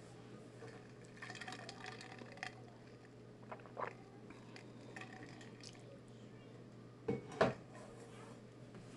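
Quiet room with a steady low hum, faint scattered light clicks, and two short knocks in quick succession about seven seconds in.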